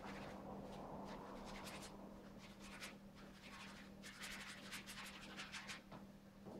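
Paintbrush scratching paint onto a stretched canvas in quick, short strokes, coming in two runs, faint, over a steady low hum.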